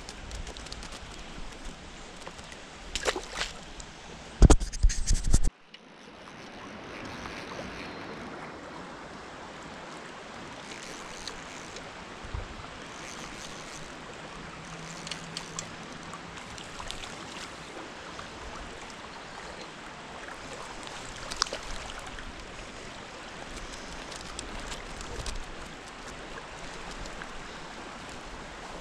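Steady rush of flowing stream water. In the first few seconds there are loud knocks and rubbing close to the microphone, and about five seconds in the sound cuts abruptly to a fuller, even rush of faster-moving water.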